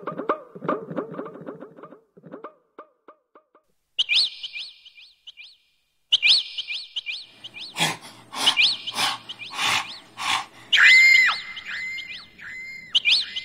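Birdsong sound effects: repeated high chirps and whistles, with a run of sharp clicks about eight seconds in and a held whistle near the end.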